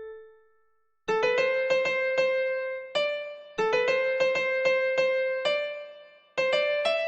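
Karaoke guide melody: the song's vocal line played one note at a time on an electric-piano-like keyboard sound, with no singing. A held note fades away, and after a short gap the tune goes on in phrases of quick, short notes.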